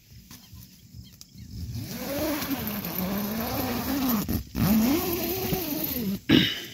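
Domestic cat yowling: long, wavering drawn-out calls that rise and fall, broken briefly once in the middle. A short loud rustle comes near the end.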